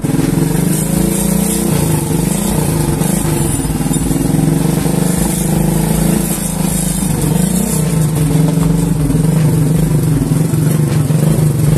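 Suzuki Shogun motorcycle's single-cylinder four-stroke engine running steadily just after starting, its pitch wavering a little around the middle. The engine had seized and has been freed without teardown by filling it with oil and turning the crankshaft until it moved freely.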